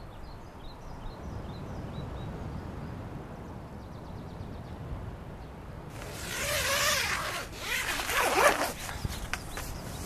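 A zipper pulled along in two long strokes starting about six seconds in, the second the louder, followed by a few light clicks, over a steady low background rumble.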